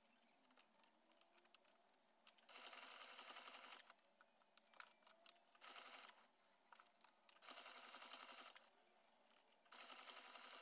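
Electric domestic sewing machine stitching through cotton fabric, running quietly in four short bursts of rapid needle strokes with pauses between them.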